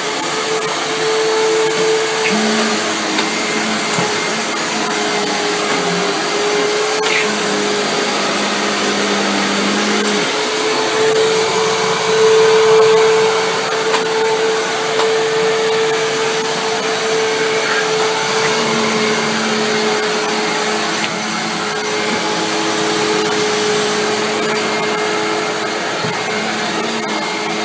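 Vacuum cleaner running steadily, its motor whine wavering a little in pitch, with a lower hum that comes and goes.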